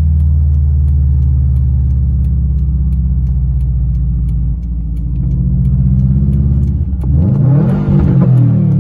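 2013 Subaru WRX's turbocharged 2.5-litre flat-four through a straight-piped exhaust, heard inside the cabin: a steady low drone while cruising, then the revs climb and it gets louder near the end as the car accelerates.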